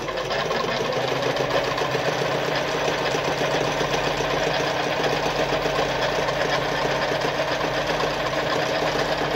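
Veritas Automatic 8014/3 semi-industrial sewing machine starting up and running at a steady speed, sewing a zigzag stitch with a fast, even clatter of needle strokes.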